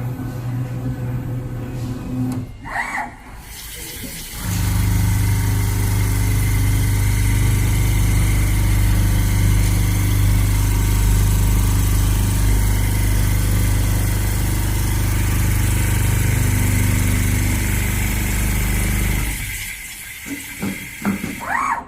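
Large CNC leather sewing machine running steadily with a low hum. It starts about four seconds in and stops shortly before the end.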